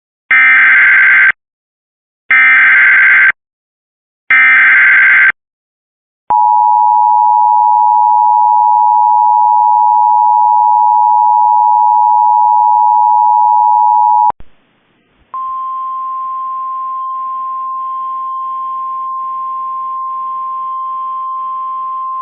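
Emergency Alert System signal: three one-second bursts of harsh warbling SAME header data, then the steady two-tone EAS attention signal for about eight seconds. After a short break about fourteen seconds in, a quieter single steady tone just above 1 kHz begins, the NOAA Weather Radio warning alarm tone.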